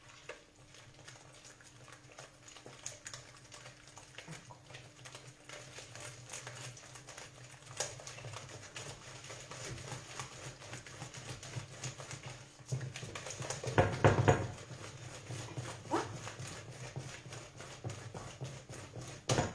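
Hand whisk beating crêpe batter in a mixing bowl as milk is worked into the flour, a fast steady ticking of the wires against the bowl. A brief louder clatter comes about two-thirds of the way through.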